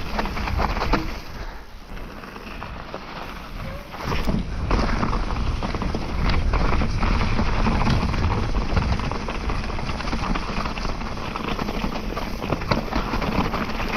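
Trek Remedy 7 mountain bike ridden over a rough dirt trail: its tyres crunch and its frame and parts rattle, with wind buffeting the microphone. The noise gets louder about four seconds in.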